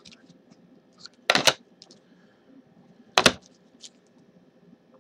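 Rigid clear plastic trading-card holders clacking against each other as they are handled: two loud sharp clacks, about a second and a half in and about three seconds in, with small plastic ticks in between.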